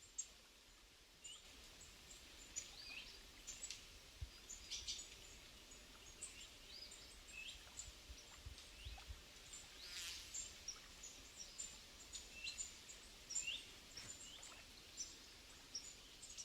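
Faint birdsong outdoors: many short, high chirps and twitters from small birds, calling on and off.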